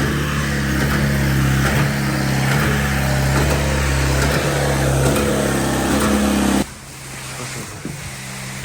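Olin 545 concrete pump's engine running steadily while pumping concrete, then cutting off suddenly near the end.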